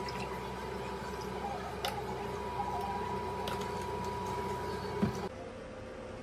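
Steady mechanical hum with a thin, high steady whine, broken by a few light clicks and a knock about five seconds in. The hum drops away shortly before the end.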